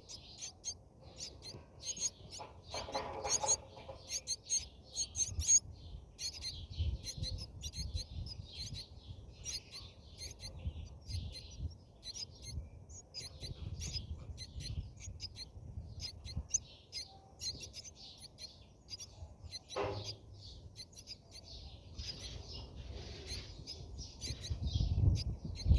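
Brahminy starlings chirping: a steady run of rapid, high-pitched chirps with short pauses, over a low rumble.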